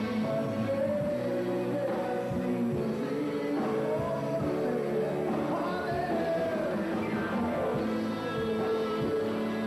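Live rock band playing, with a gliding melodic lead line over the band.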